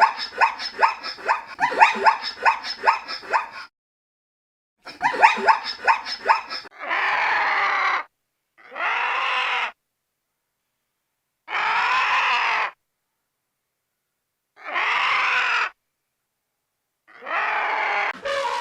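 Animal calls: a fast run of short yelping calls, several a second, then a second run, then five separate drawn-out cries of about a second each with silences between.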